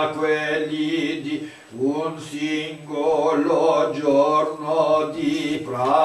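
A male Nichiren Buddhist priest chanting liturgy in Japanese in an intoned, held voice, with a short pause for breath about two seconds in.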